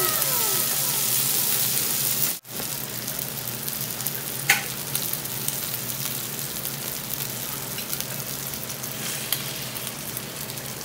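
Tuna sisig with a freshly cracked raw egg sizzling in butter on a hot metal sizzling plate, a steady hiss. The sizzle drops out for an instant a little over two seconds in and comes back quieter, with a single sharp tick about four and a half seconds in.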